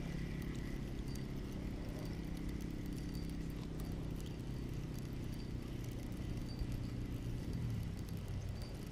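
Spinning reel being cranked to retrieve line: a steady low whirr from its gears and rotor with faint light ticks, dropping slightly in pitch near the end as the cranking slows.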